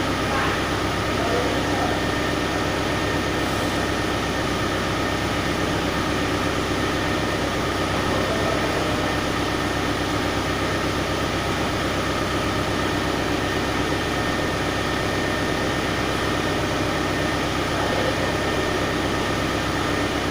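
A machine running steadily, an even noise with a faint high whine.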